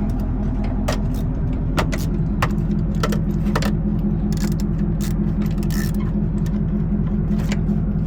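Irregular sharp metallic clinks and taps of hand tools at work on a V8's spark plugs, over a steady low engine hum.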